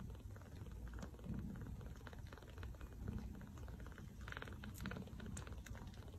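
Newborn kittens nursing from their mother: faint, quick, wet suckling clicks and smacks over a low rumble, with a slightly louder rustle a little past four seconds.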